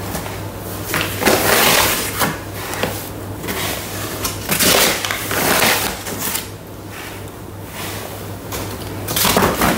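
Baker's flour being scooped with a plastic cup from a paper sack and tipped into a Thermomix bowl: the paper bag rustles and crackles and flour pours in, scoop after scoop, in about three rough bursts over a steady low hum.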